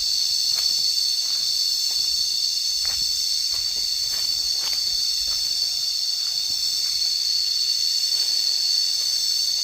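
Cicadas calling together in a steady, high-pitched buzzing drone that holds without a break.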